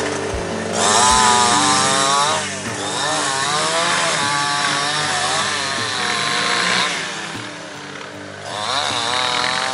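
Two-stroke chainsaw cutting wood, its pitch rising and falling as it revs and bogs under load. It runs in two spells with a short lull about seven seconds in, over background music.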